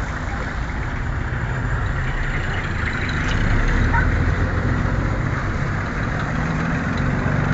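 Street traffic with a motor vehicle engine running nearby: a steady low hum over road noise, swelling a little about four seconds in.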